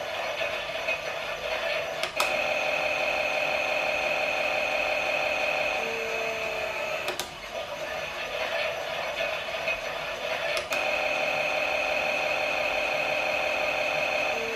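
Toy Klein Miele washing machine running a pretend wash: its small motor whirs steadily with a high tone, broken by three sharp clicks, after each of which the whir changes slightly.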